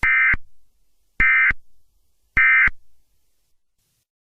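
Emergency Alert System end-of-message data bursts: three short, identical squawks of rapidly switching digital tones, about a second apart. They mark the end of the alert.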